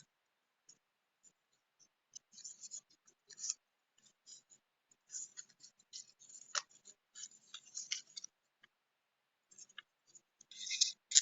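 Paper and small craft materials being handled close to the microphone: irregular crinkles, scratches and light clicks, with a louder burst of crinkling near the end.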